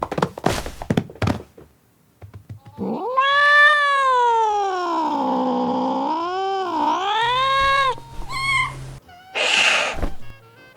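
A few sharp knocks, then a domestic cat's long drawn-out meow lasting about five seconds, falling and rising in pitch, followed by a few short calls and a brief burst of noise near the end.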